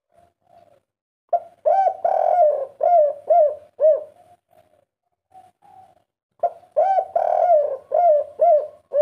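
Spotted dove cooing in two phrases, one starting about a second in and one about six and a half seconds in. Each phrase is a couple of short coos, one longer drawn-out coo, then three quick closing coos: the 'kuk 3' song pattern.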